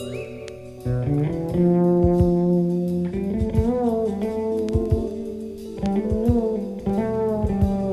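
Post-bop jazz band playing: held melody notes over plucked guitar-like chords and bass.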